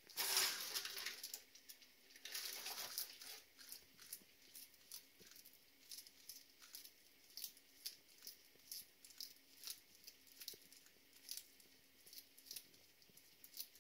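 Frilled dragon chewing its food: short crunchy clicks about twice a second, after a louder crackling rustle in the first three seconds.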